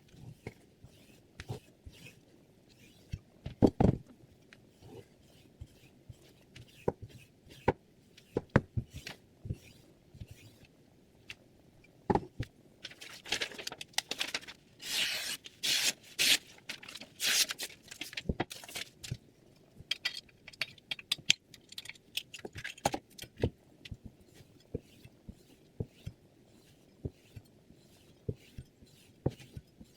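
A chef's knife blade scraping in a run of quick strokes midway through, among scattered light clicks and taps.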